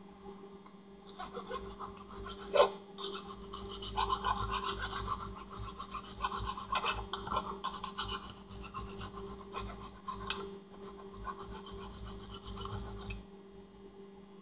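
Hand filing on a steel bolt head with a triangular file: repeated rasping strokes as the new screwdriver slot is shaped, stopping near the end.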